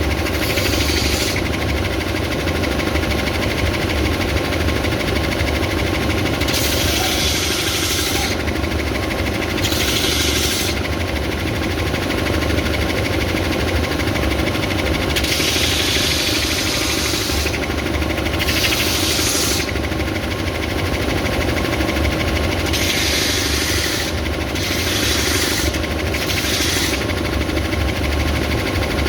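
Stationary belt sander running with a steady motor hum, and a hiss of sanding each time a thick piece of wood is pushed onto the moving belt: about seven passes of one to two seconds each.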